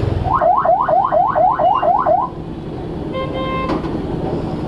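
An electronic vehicle alarm sounding in rapid rising sweeps, about four a second, for about two seconds. A little after three seconds in, a vehicle horn gives one short blast. Steady traffic noise runs underneath.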